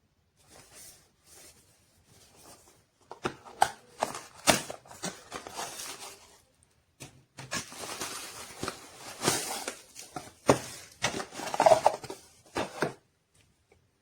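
Hands handling a boxed alarm clock and its packaging: rustling and scraping with many sharp clicks and knocks, in two stretches with a short pause about halfway through.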